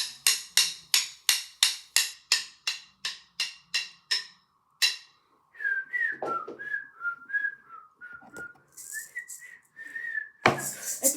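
A run of sharp clicks, about three a second, then a whistled tune that wanders up and down in pitch. Near the end a loud, dense rattling beat cuts in.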